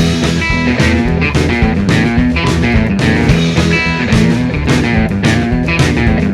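Background rock music with electric guitar and bass over a steady beat.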